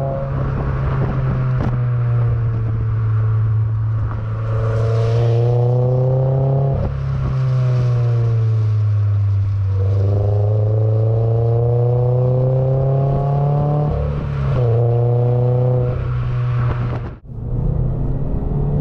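Toyota GR86's naturally aspirated 2.4-litre flat-four heard from inside the cabin, pulling hard through the gears: the engine note climbs under acceleration, drops sharply at each upshift, and eases down when the driver lifts off. The sound breaks off briefly near the end.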